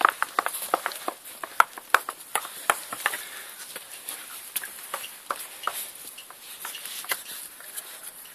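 Quick, irregular clicks and scuffs of cocker spaniel puppies' claws and paws scrabbling on stone paving and plant pots, thick in the first three seconds and sparser after.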